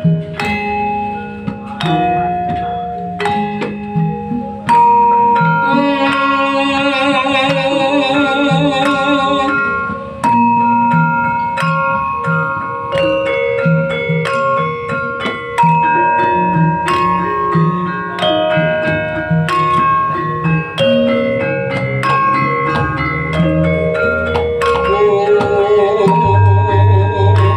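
Javanese gamelan ensemble playing, the sarons' metal keys struck with wooden mallets ringing out a steady run of notes up front. A wavering held melody with vibrato joins about six seconds in and returns near the end, and a deep low tone enters shortly before the end.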